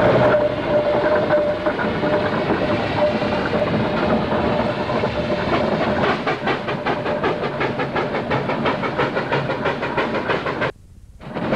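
Steam traction engine working along the road, its exhaust beating rapidly and regularly at about five beats a second, with a steady high tone over the first couple of seconds. The sound drops out briefly near the end.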